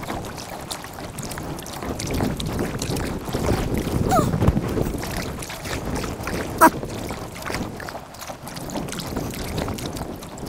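Sped-up kayak paddling: paddle strokes and water splashing, with some wind on the microphone. A single sharp knock comes about two-thirds of the way through.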